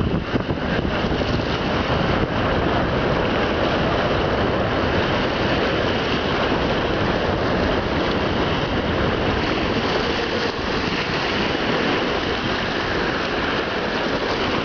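Wind buffeting the microphone over choppy lake water: a steady, heavy rushing noise with no engine tone in it.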